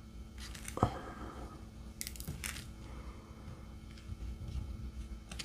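A few light clicks and taps from diamond painting work, a drill pen and resin drills on the canvas and tray, with one sharper knock about a second in.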